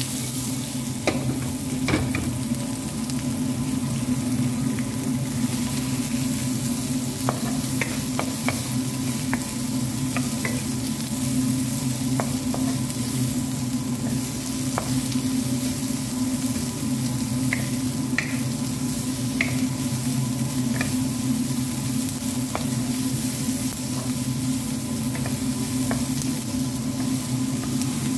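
Sliced onions and green bell pepper sizzling in a nonstick frying pan while a wooden spatula stirs them, with occasional short taps and scrapes of the spatula on the pan. A steady low hum runs underneath.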